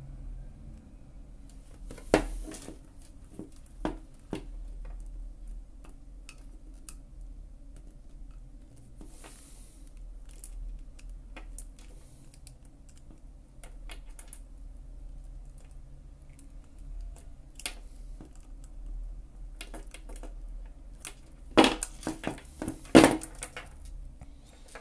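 Small clicks and taps of pliers working the metal links of a beaded costume-jewellery necklace, with beads and links knocking together. A sharp click about two seconds in and a cluster of louder clicks near the end.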